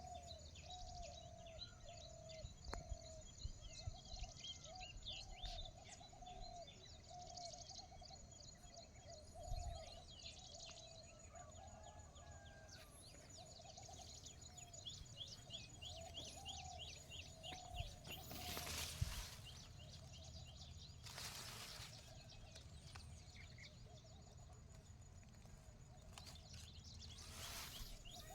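Several birds calling outdoors: one low call repeated over and over, overlaid with many quick high chirps, faint throughout. A steady thin high tone runs underneath, and a few short rushes of noise come in the second half.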